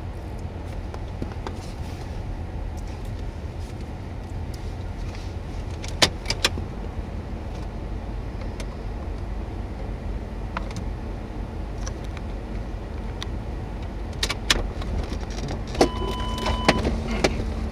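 Steady low rumble of wind and a vehicle, with two sharp clicks about six seconds in. Near the end come several knocks and a brief steady electronic beep.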